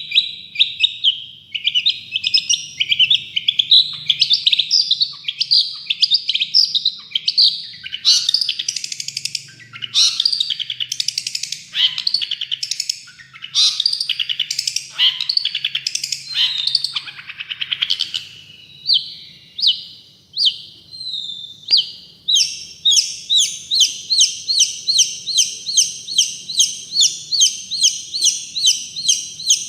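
Long-tailed shrike (cendet) in full song: a long run of rapid, varied chattering and harsh scratchy phrases. In the last third it switches to a regular series of sharp repeated notes, about two a second.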